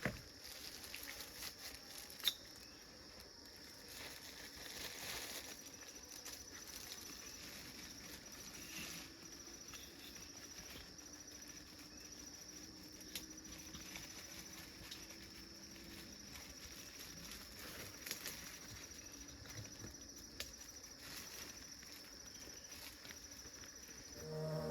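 Faint forest ambience: insects trilling steadily on one high note, with scattered small clicks and rustles.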